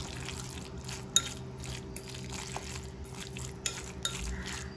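Metal fork mixing a moist tuna salad in a glass bowl, scraping and clinking against the glass, with sharp clinks about a second in and twice near the end.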